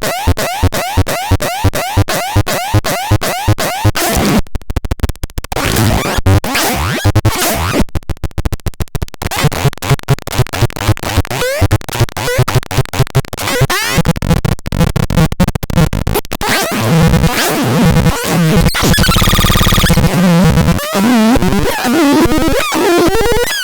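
Synthesized electronic demo sounds from a CBX 6013E: a fast repeating pattern of short chirps, then choppy, stuttering tones and noise, and near the end sustained warbling tones.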